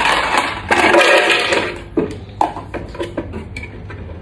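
Ice cubes clattering into a plastic blender jar, a loud rattle over the first second and a half, followed by scattered clicks and knocks as the jar's lid is pressed on.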